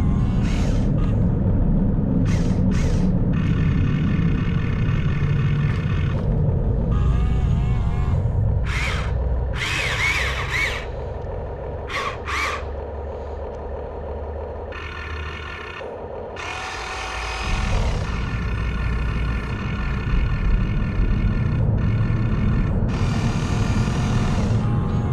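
Whine of a Huina 1592 RC excavator's electric motors, starting and stopping in spurts as the arm, boom and bucket dig and swing. The pitch wavers as the motors take load. A steady low rumble runs underneath.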